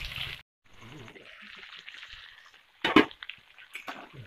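Duck curry with pumpkin and potatoes sizzling faintly in a metal kadai. A sharp knock sounds about three seconds in and a lighter one just before the end.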